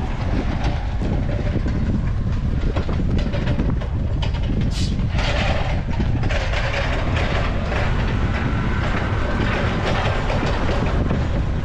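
Wind buffeting the microphone of a camera carried along an exposed seaside pier: a loud, steady low rumble with a rushing haze above it.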